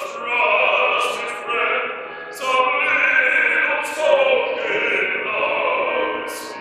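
A male voice singing a musical-theatre song in long, sustained phrases, with several sharp s sounds.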